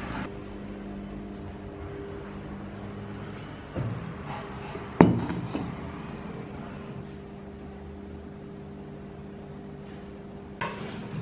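A steady low hum, with a soft knock just before four seconds in and a sharp, ringing knock about five seconds in.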